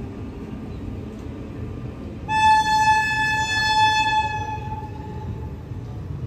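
Train running with a steady low rumble; about two seconds in, a high single-note train horn sounds for about two seconds, then fades.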